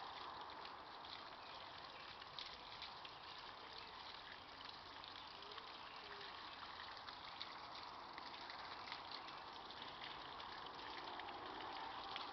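Faint, steady rush of running water, with scattered small clicks.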